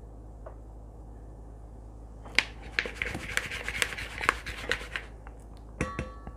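Hands working raw quail pieces through an egg wash in a bowl: a couple of seconds of quick wet clicks and rubbing, then two sharp taps against the bowl that ring briefly near the end.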